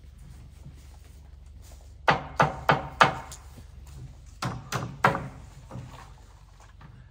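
Hammer blows on old boards: four quick strikes about two seconds in, each about a third of a second apart, then three more a second and a half later, each with a short ring.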